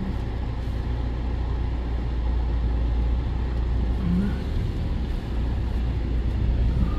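A motor vehicle's engine running, heard as a steady low rumble.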